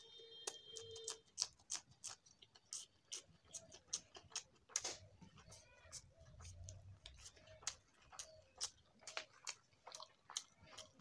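Eating sounds of a man eating rice and curry with his fingers and biting raw green chilli: soft, irregular chewing and lip-smacking clicks, two or three a second. A faint chime-like tone dies away about a second in.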